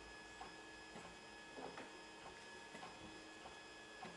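Desktop FDM 3D printer running at a print, heard faintly: a steady hum and whine from its motors and print-head cooling fan, with light irregular ticks about twice a second as the head moves.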